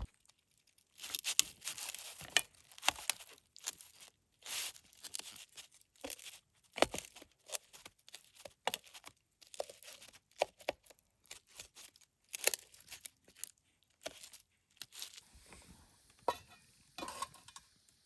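A long run of irregular, crisp tearing and crunching sounds at close range: short rasps and crackles, one after another, with brief pauses between them.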